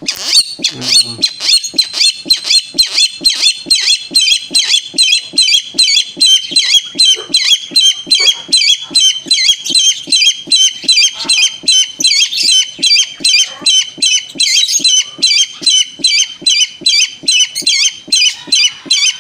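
A captive tikling, a Philippine rail, calling a long, unbroken run of harsh repeated notes, about two to three a second. It is the bird's aggressive display, showing its fierceness.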